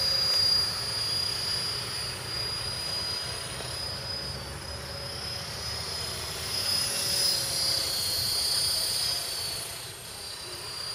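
KDS 450 electric RC helicopter in flight: a high whine from its motor and rotor, swelling and fading as it moves about. The pitch wavers about seven to nine seconds in.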